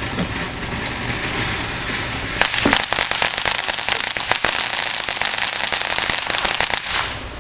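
A consumer firework called TNT going off: a steady hiss, then about two and a half seconds in a dense run of sharp crackling pops that stops abruptly near the end.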